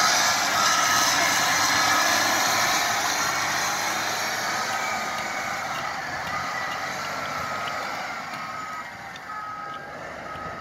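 Caterpillar 120M motor grader's engine running as the machine drives off, fading steadily, with a backup alarm beeping at a little over one beep a second near the start and again near the end.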